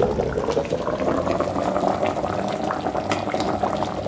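A pot of plantain and potato stew boiling, a steady bubbling with many small pops.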